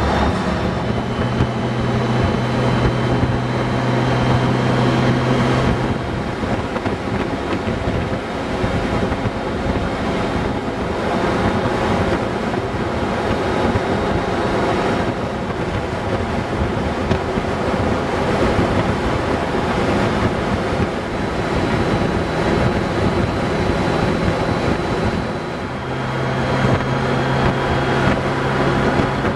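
Honda Gold Wing motorcycle riding at highway speed: steady wind rush on the microphone over the engine's low hum. The hum is stronger in the first few seconds and again near the end.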